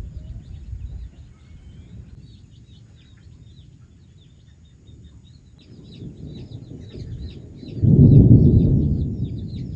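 Thunder rumbling low, swelling loudest about eight seconds in and then slowly fading, while birds chirp rapidly and steadily high above it.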